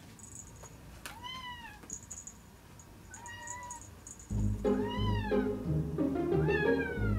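A cat meowing four times, each meow rising then falling in pitch. Background music comes in about midway.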